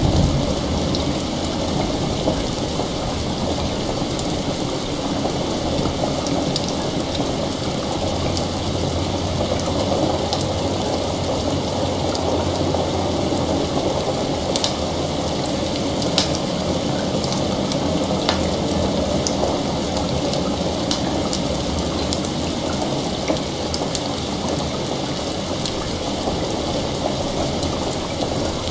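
Steady rain with a fire crackling over it: sharp little pops and snaps scattered throughout.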